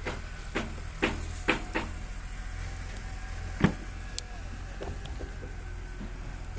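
Scattered sharp clicks and knocks from a plastic bottle being handled as soapy water is poured over a steel pipe elbow joint. The loudest comes about three and a half seconds in, over a steady low hum.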